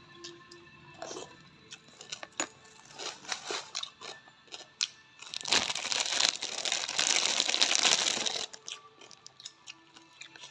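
A person eating Lao-style papaya salad close to the microphone: crisp crunching bites and chewing, with a denser, louder run of crunching and crackling lasting about three seconds in the middle.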